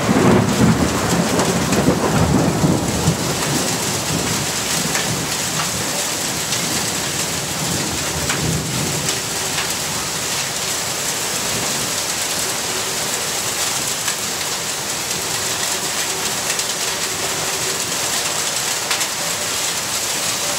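Heavy rain pouring steadily in a thunderstorm. A rumble of thunder dies away over the first few seconds, and a weaker rumble swells about eight seconds in.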